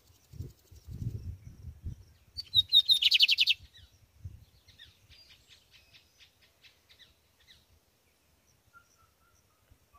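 Male lined seedeater singing in its cage: a loud burst of rapid, repeated notes about two and a half seconds in, lasting about a second, then a fainter run of quick clicking notes from about five to seven and a half seconds. Low rumbling in the first two seconds.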